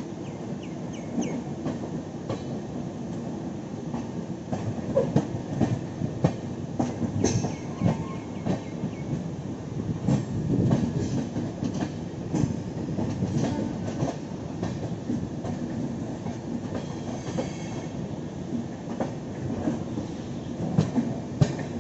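Express passenger train running on the track: a steady rumble with wheels clattering over rail joints and a couple of brief wheel squeals.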